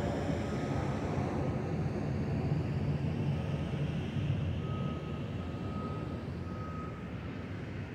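Twin-engine jet airliner climbing after takeoff, its engines a steady low rumble that slowly fades as it moves away.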